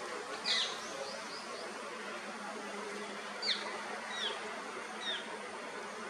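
A bird giving short, high chirps that sweep downward: a cluster about half a second in, then three single notes spaced through the second half, over a steady hiss.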